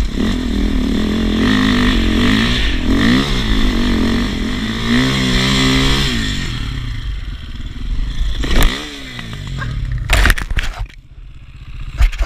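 KTM 450 EXC single-cylinder four-stroke enduro engine pulling hard in second gear up a steep grassy climb, its pitch rising and falling with the throttle before the revs die away. Near the end come a few sharp knocks and clatter as the bike comes to a stop.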